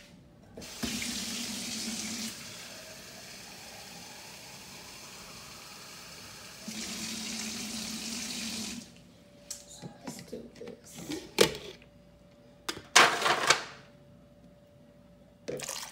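Water running steadily from a tap into a cup for about eight seconds, louder at the start and near the end. Then clinks and knocks as the glass lid of a slow cooker is lifted off, the loudest knocks coming late.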